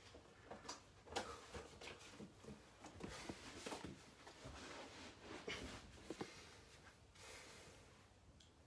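Near silence with faint rustles and soft clicks scattered throughout: a person shifting on a carpeted floor and handling a stack of magazines held as a weight for pull-overs.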